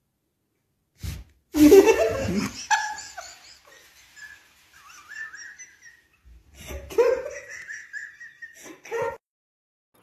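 A person laughing in high, wavering giggles, in two bouts: the first starts loud about a second and a half in and trails off, and a second begins a little before the seven-second mark.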